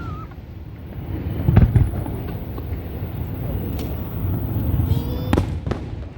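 Fireworks display: aerial shells bursting over a low rumble, with a deep boom about one and a half seconds in and a sharp crack near the end.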